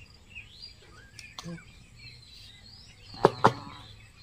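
Small birds chirping in the background. Two sharp clicks about a quarter second apart come a little over three seconds in and are the loudest sounds.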